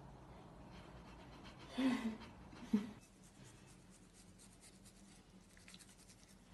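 Toothbrush scrubbing a cat's teeth: faint, rapid scratching strokes in the second half. Before it, about two seconds in, two short voice sounds stand out as the loudest things.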